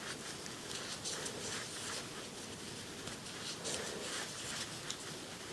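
Crochet hook and yarn scratching and rustling softly and irregularly as stitches are worked.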